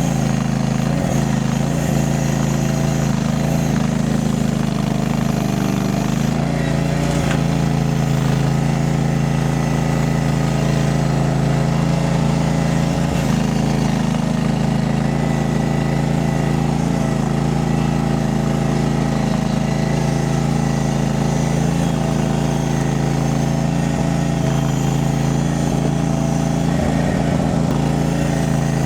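Mini skid steer's small engine running steadily, with a slight change in its tone about seven seconds in.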